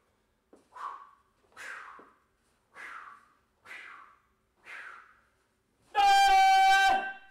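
Taekwondo practitioner's kihap: one loud, held, pitched yell about a second long, near the end. Before it come five short rushes of breath or cloth noise, about one a second, in time with his strikes during the pattern.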